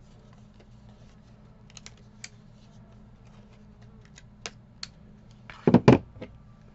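Sparse light clicks and crackles of paper being handled, then two heavy knocks about five and a half seconds in as a tool is set down on the tabletop.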